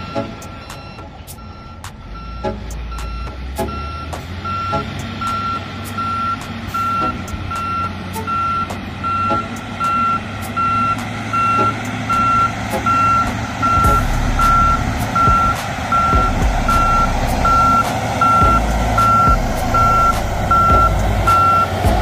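Volvo G710 motor grader reversing, its back-up alarm beeping evenly at a little under two beeps a second over the diesel engine's rumble. Both grow louder as the machine nears.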